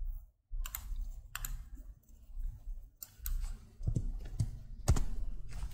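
Computer mouse clicks and keyboard keystrokes: sharp single clicks at irregular intervals, closer together in the second half, over a faint low hum.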